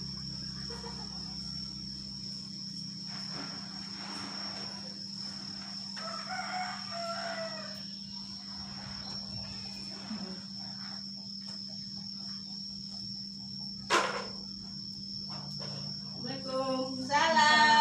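A rooster crows once, faintly, about six seconds in, over a steady high thin whine and a low hum. A single sharp knock comes near the end.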